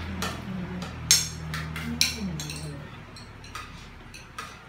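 Dishes and cutlery clinking and clattering: a string of about seven sharp clinks, the loudest about a second in and another about two seconds in.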